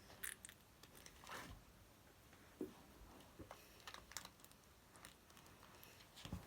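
Faint, scattered small clicks and crackles of hands handling slime and its container, quiet between them.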